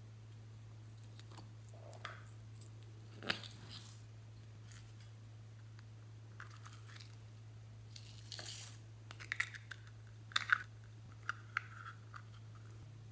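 Faint, scattered clicks, taps and brief rustles of small plastic toys being handled, over a steady low hum. The clicks cluster in the second half.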